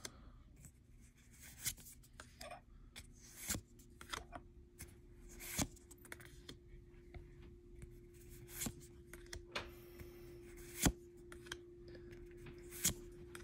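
Pokémon trading cards being handled and moved from the front to the back of a stack one at a time: scattered sharp clicks and snaps of card against card. A faint steady hum runs underneath.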